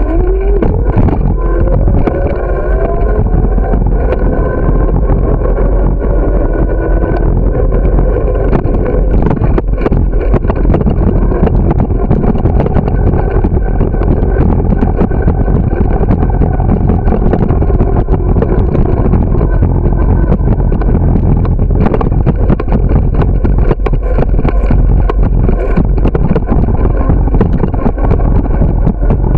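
Steady wind rush on the microphone of a moving bicycle, with irregular rattles and jolts from riding over pavement.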